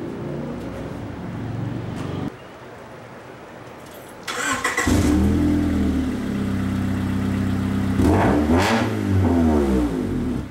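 Honda Accord engine starting about four seconds in and running loudly through its exhaust with the muffler cut off. It is revved briefly around eight to nine seconds in.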